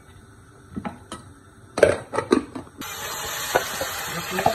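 A few light clicks and knocks, then, from about three seconds in, chopped onion and green pepper sizzling steadily as they fry in hot oil in a pan.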